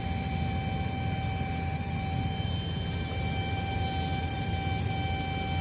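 Steady mechanical drone with a low rumble and a constant thin whine, unchanging throughout.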